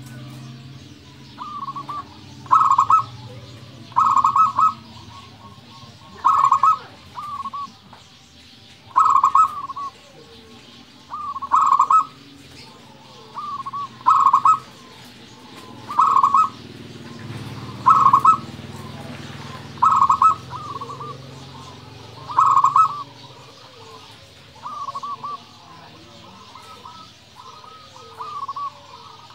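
Zebra dove (perkutut) singing: short cooing phrases repeated about every two seconds, each a softer note or two leading into a louder coo.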